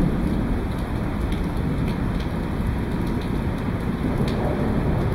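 Steady rain falling on parked cars and wet pavement, with scattered drops ticking close by and a low rumble underneath.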